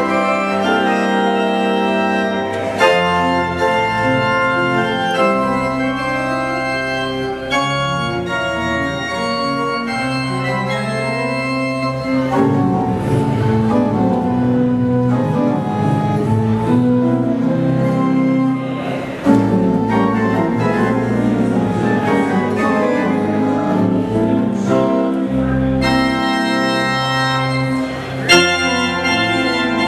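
Pipe organ playing held chords over a moving pedal bass line. The texture grows busier about halfway through, and brighter upper stops sound again near the end.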